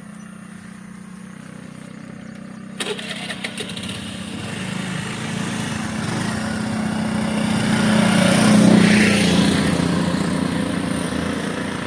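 A motor vehicle's engine passing close by. It grows louder for several seconds, peaks late on, then fades.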